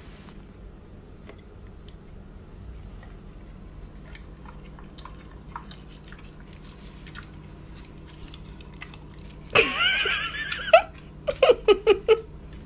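Dog mouthing and chewing a piece of green leaf, with faint scattered mouth clicks. About ten seconds in a loud voiced cry rises and falls, followed by a quick string of short voiced bursts.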